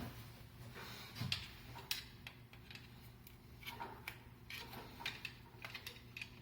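Scattered small clicks and taps of hands working on metal parts: wire terminals being handled on an electric range's limit switch.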